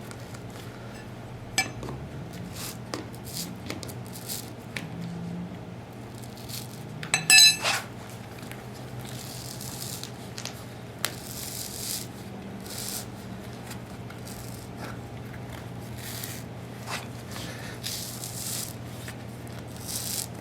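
Hand tools working a vinyl floor tile loose: scattered light scrapes and clicks, with one sharp metallic clink about seven seconds in, over a steady low hum.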